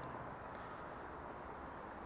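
Faint, steady background noise with no distinct sounds: room tone with distant city ambience.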